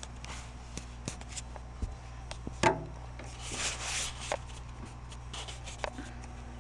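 Scattered clicks and light knocks from computer parts being handled, with a sharp click about two and a half seconds in and a short rubbing, rustling stretch a little later.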